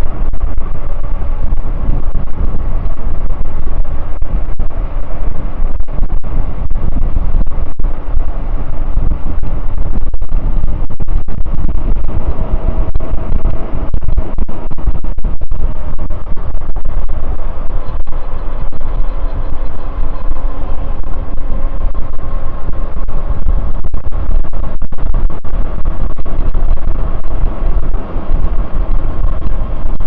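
Wind rushing and buffeting over the microphone as an e-bike coasts fast downhill on asphalt, with tyre road noise under it: a loud, steady rush with a faint hum.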